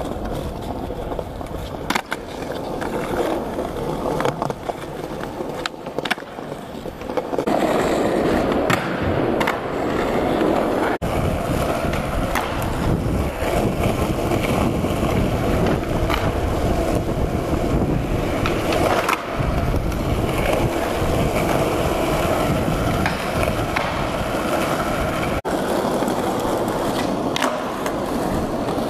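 Skateboard wheels rolling over smooth concrete, a steady rumble that gets louder about seven seconds in, with a few sharp clacks of the board hitting the ground.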